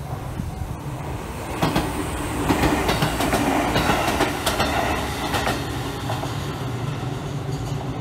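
An electric commuter train passes over a level crossing, its wheels clacking over the rail joints. The clacking is loudest from about one and a half to five and a half seconds in, then fades as the train moves away. The crossing's warning bell keeps ringing underneath.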